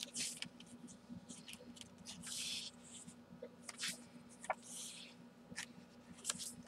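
Paper pages of a handmade junk journal being turned and handled: a series of short, soft rustles with a few light clicks.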